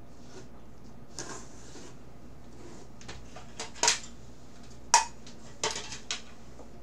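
Leather-and-metal military field gear being handled: a soft rustle about a second in, then a few sharp metallic clinks and clatters, the loudest around four and five seconds in.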